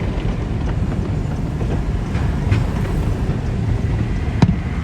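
Steady low road and engine rumble heard from inside a moving car, with one sharp click about four seconds in.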